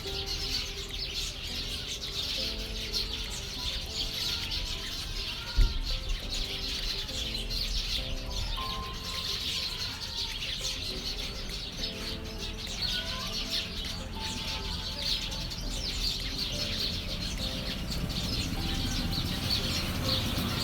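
A flock of small birds chirping and twittering together in a tree, a dense, continuous high chatter, over soft background music. A single thump about five and a half seconds in.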